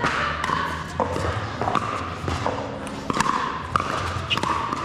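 Pickleball play on an indoor hard court: sharp pops of paddles hitting the plastic ball, several in a few seconds, mixed with shoe squeaks and footsteps, echoing in a large hall.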